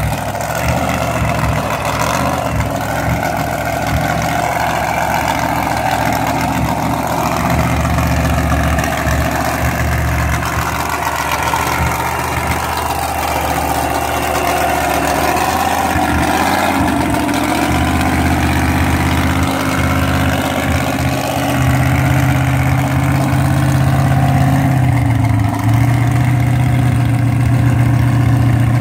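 Engine idling steadily, its speed stepping up a few times in the second half, with a short dip near the end.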